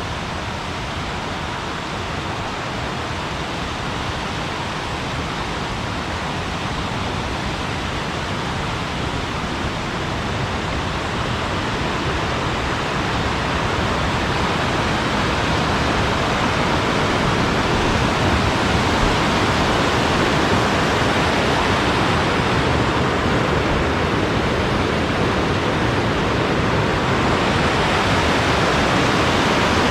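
Rushing mountain stream water, a steady roar of whitewater that grows gradually louder.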